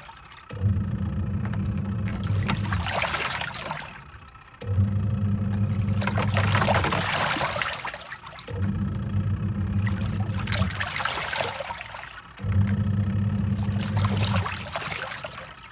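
Twin-tub washing machine's wash tub agitating: the motor hums for about two seconds at a time, stopping and reversing roughly every four seconds, with water sloshing and swirling after each run.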